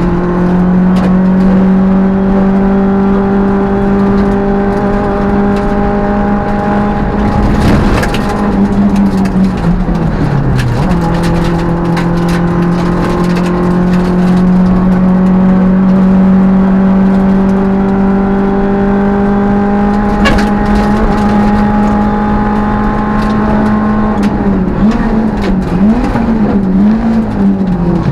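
Peugeot 205 rally car's four-cylinder engine heard from inside the car on a rally stage, held at high, steady revs for long stretches. The note sags and picks up again about ten seconds in, and rises and falls quickly several times near the end. A few sharp cracks cut through, around eight and twenty seconds in.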